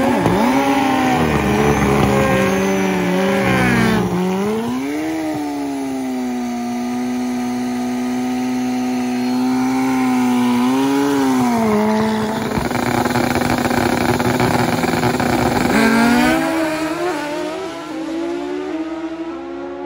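Turbocharged Honda CBR1000RR Pro Street drag bike engine held at high revs through a burnout, then revving lower while staging. About three-quarters through it climbs in pitch in steps as the bike launches and shifts up, fading as it pulls away.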